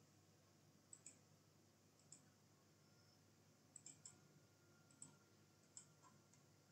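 Faint computer mouse clicks: a handful of single and double clicks spaced a second or so apart.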